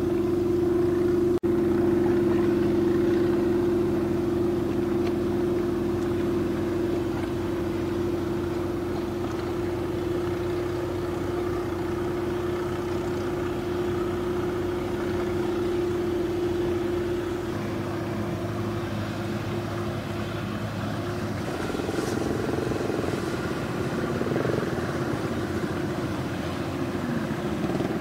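Steady drone of boat engines with a strong hum, which fades about two-thirds of the way through, leaving a rougher engine rumble.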